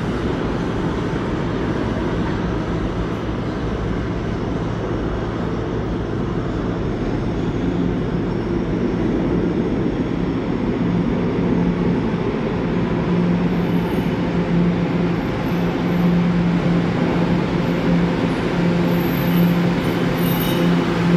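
New York City subway train running into an underground station, its rumble in the tunnel slowly growing louder, with a steady low hum that strengthens over the second half and faint high-pitched whines near the end.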